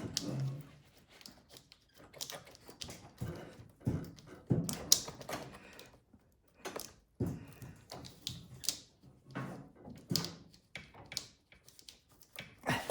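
Irregular clicks, taps and light knocks of hands working a snowblower's throttle lever and linkage loose, small metal and plastic parts rattling against the engine.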